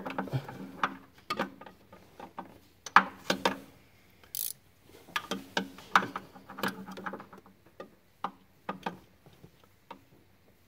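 Irregular clicks and short metal knocks of a 19 mm flex-head ratcheting gear wrench being worked down past the engine's obstructions onto the cylinder head temperature sensor. The clicks come in clusters and thin out near the end.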